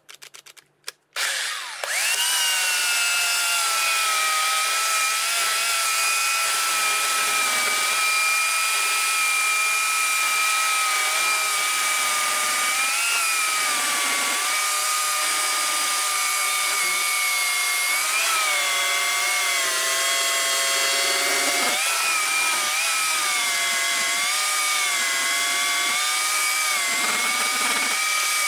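Oregon CS1500 electric chainsaw cutting through a seasoned log: a few short bursts about a second in, then the motor runs steadily with a high whine, its pitch dipping briefly several times as the chain bites into the wood.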